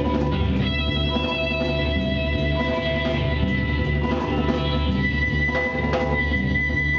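Live band jamming, instruments with a guitar among them playing long held notes over a full low end.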